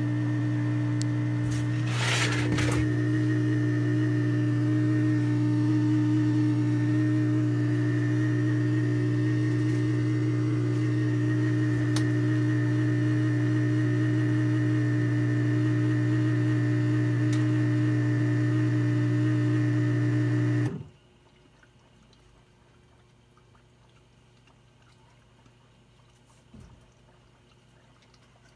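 A Bosch dishwasher making a loud, steady laboring hum, with a brief rattle about two seconds in. The hum cuts off suddenly about 21 seconds in, leaving near silence. The owner's friend thinks the pump is going out.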